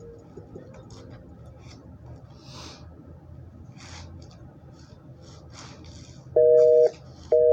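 Faint background noise with scattered light ticks and scuffs and no music, then near the end two loud half-second beeps, each of two steady tones sounding together, spaced like a telephone busy signal.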